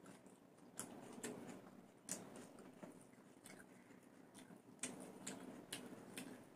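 Quiet sounds of people eating fried rice with their hands: soft chewing with scattered sharp, irregular clicks and smacks.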